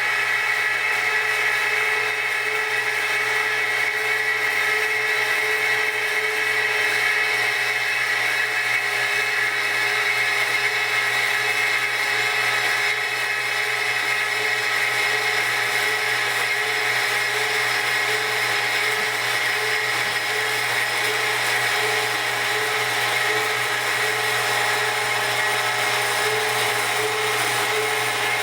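Model 22F metal-cutting band saw running steadily through a 4-inch square pipe, a continuous machine whine with high, ringing tones from the blade in the cut.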